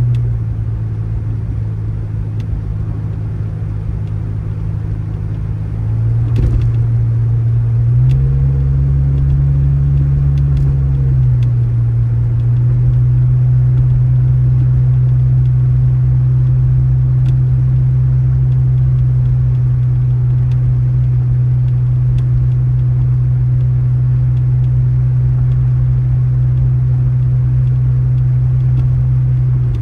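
An engine running with a steady low drone. Its pitch steps up about six seconds in, rises further for a few seconds around eight to eleven seconds, then settles at a steady speed.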